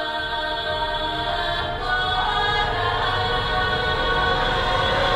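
Choral music: voices holding long sustained chords, the chord changing about two seconds in.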